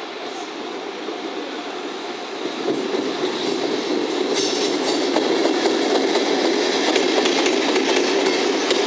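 Two coupled EF65 electric locomotives running light, the second towed dead, passing close by. Wheels rumble on the rails, growing louder from about two and a half seconds in, with the clickety-clack of wheels over rail joints as they go past.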